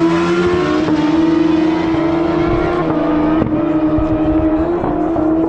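Drag-racing motorcycle engine running steadily, its pitch holding nearly level with small wavers.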